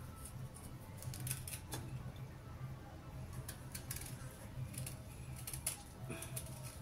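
Small kitchen knife cutting into a raw beetroot held in the hand: irregular crisp clicks and crunches as the blade bites through the firm root, over a low steady hum.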